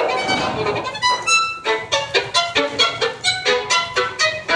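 Solo violin played with the bow, a lively tune that settles into short, separate notes about three or four a second from about a second in.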